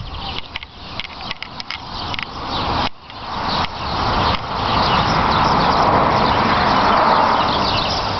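A car passing on a road: a rushing sound of tyres and engine that swells about three seconds in and stays loud, over short ticking sounds at the start.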